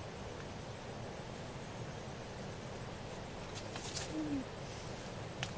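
Steady outdoor background with a single short, low hooting bird call, falling slightly in pitch, about four seconds in. A few light clicks of bamboo sticks poking through dry leaf litter come just before the call and again near the end.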